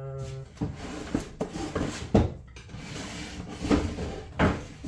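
Irregular knocks and clatter of small parts containers and organizer drawers being rummaged through and handled on a workbench, with a few sharp bangs, the loudest near the end.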